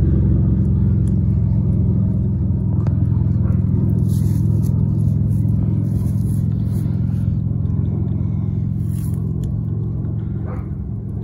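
A steady low mechanical rumble that slowly fades, with short rustling sounds about four seconds in and again about nine seconds in.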